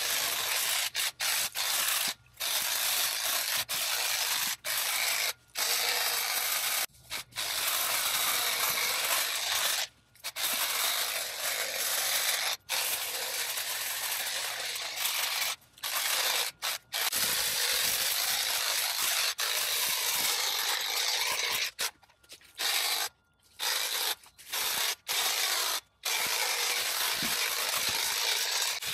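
Kress cordless hedge trimmer running and cutting through hedge branches, a dense high-pitched noise that stops for a moment about a dozen times.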